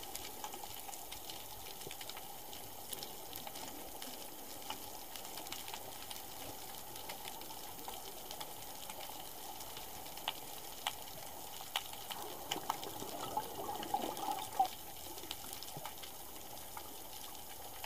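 Underwater ambience picked up by a camera in its housing: a steady watery hiss with scattered sharp clicks, and a louder stretch of water noise from about 12 to 14.5 seconds in.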